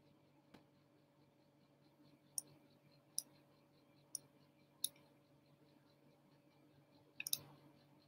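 Faint sharp clicks, single ones roughly a second apart, then a quick run of three near the end, over a low steady hum.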